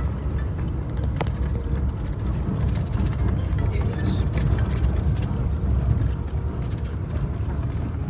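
Steady low rumble of a vehicle's engine and tyres heard from inside the cabin while driving on a rough, potholed road, with a couple of brief knocks.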